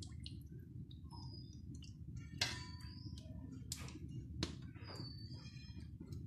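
A few light clicks of a metal spoon against an aluminium cooking pot as it is lifted out of the coconut-milk broth, over a faint steady low rumble.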